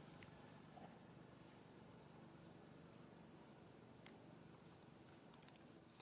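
Faint, steady, high-pitched chorus of insects in forest vegetation, with a few soft ticks.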